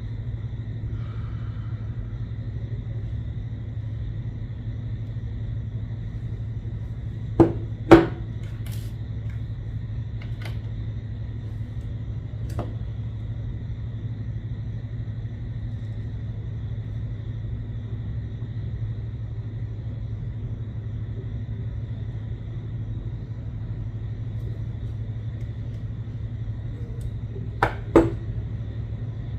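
Steady low hum, with a few sharp clicks and taps: a pair about a third of the way in, two fainter ones soon after, and another pair near the end.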